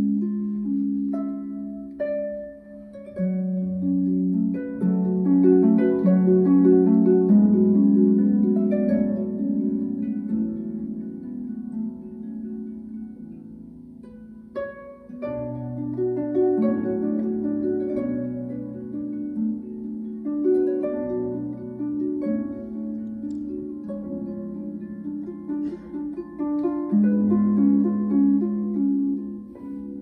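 Concert harp playing fast repeated plucked figures in a flowing minimalist texture. The music swells, thins out about halfway through, and builds again.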